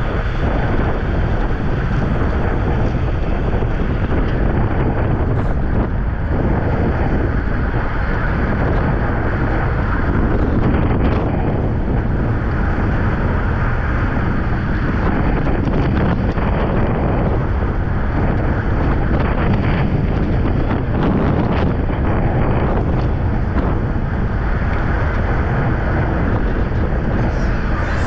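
Steady wind buffeting on the microphone of a road racer's camera at racing speed, a loud rushing that does not let up.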